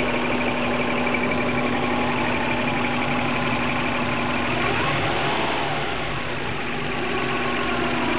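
Subaru WRX turbocharged flat-four engine, swapped into a Legacy, idling with a fast, even, repeating squeak over the engine note. The squeak only appears once the engine is fully warmed up. The engine note dips briefly about six seconds in.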